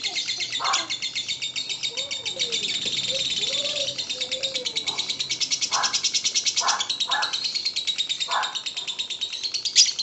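Lovebird singing its long, unbroken rapid chatter ("ngekek"): a very fast run of high ticking notes with no pause. A few short, lower chirps come in from about the middle, and one sharp, loud chirp sounds just before the end.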